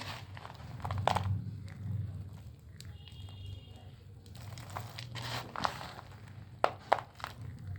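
Dry clay crumbling and crunching, with irregular sharp cracks as pieces break apart. The loudest cracks come about a second in and twice near 7 seconds.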